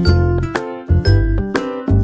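Background music with a steady beat, about two beats a second, under a melody.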